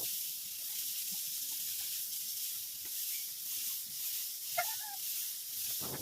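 Steady high-pitched hiss throughout, with a short bird-like chirp, as from a chicken, about four and a half seconds in.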